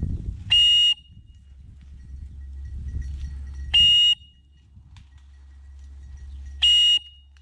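Three short electronic beeps about three seconds apart, each a clear high tone, from a bird dog's beeper collar, over a low rumble.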